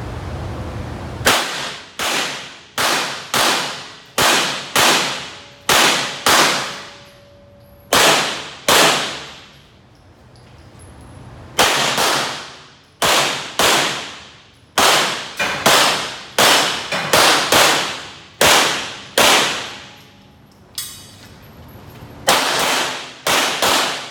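Handgun fired through a practical-shooting stage: about two dozen sharp shots in quick strings, with pauses of a second or two between strings. Each shot rings on in the echo of an indoor concrete range.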